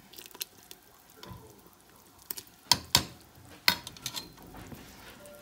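A metal spoon stirring and scooping in a metal stockpot of menudo, knocking against the pot's side in a few sharp clinks; the loudest come around three seconds in.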